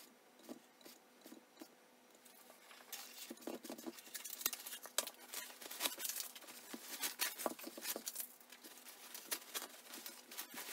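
Masking tape and paper-towel masking being peeled and pulled off a painted 3D-printed model: a few faint ticks at first, then from about three seconds in a busy crackling rustle of paper and tape.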